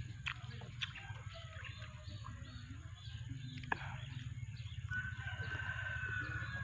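Birds chirping and calling, with one long, steady call starting about five seconds in, over a low steady hum. A few sharp clicks come from someone biting and chewing Java plums (duhat).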